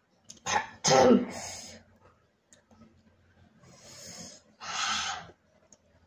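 A woman coughing: a short cough, then a louder, longer voiced cough about a second in, brought on by the chili heat of the spicy ramen she is eating. A shorter breathy burst follows near the end.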